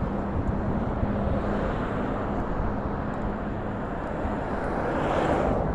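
Street and traffic noise with low rumble heard while riding a Bird electric scooter slowly along a road, with a vehicle passing about five seconds in.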